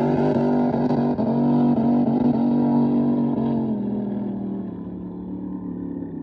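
Racing drag boat engine at full throttle, its pitch stepping up and down, then dropping and fading from about four seconds in as the boat runs away down the course.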